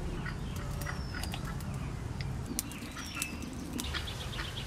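Outdoor rural ambience: small birds chirping now and then, with a cluster of chirps near the end, over a steady low rumble of breeze and scattered small clicks.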